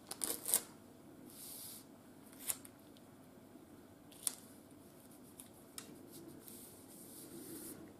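Hands handling clear sticky tape on a sheet of paper. A quick cluster of sharp clicks comes in the first second, then scattered single ticks and two short stretches of soft rustling, the longer one near the end.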